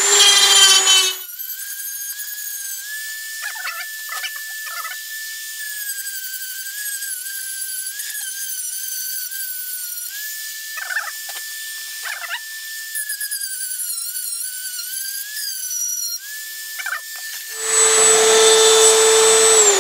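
Dremel rotary tool with a sanding drum sanding the inside of a wooden boat hull. It runs loud for about the first second, then gives way to a quieter, steady high whine that wavers slightly in pitch, broken by a few short scratchy bursts. Near the end it runs loud again, then is switched off and winds down in a falling whine.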